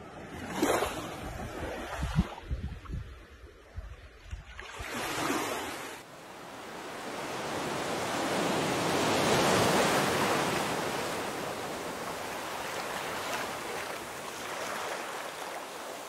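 Sea water washing in the shallows with wind buffeting the microphone in low thumps, and a couple of short swishes of water. About six seconds in, the sound changes to a steady wash of surf that swells to a peak and slowly eases off.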